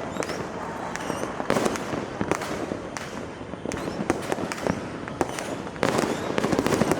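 Fireworks and firecrackers going off all around: a constant crackle with frequent sharp bangs, a few short whistles near the start, and a denser volley of bangs about six seconds in.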